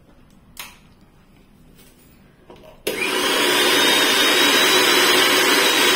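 A 500-watt Butterfly Grand Mix mixer grinder switched on for a trial run: after a single click, its motor starts abruptly about three seconds in and runs loud and steady with a faint high whine.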